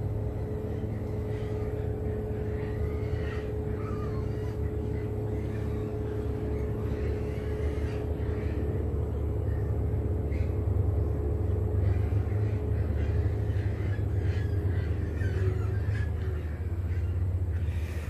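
Steady outdoor background: a low rumble with a faint constant hum that fades out near the end, and occasional faint chirps.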